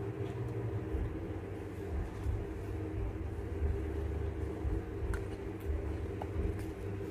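A steady low rumble with a steady hum of several tones held at one pitch.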